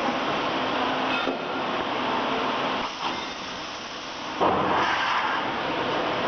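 High-frequency welding machine running with a steady whirring noise; about four and a half seconds in it suddenly gets louder and deeper for a couple of seconds.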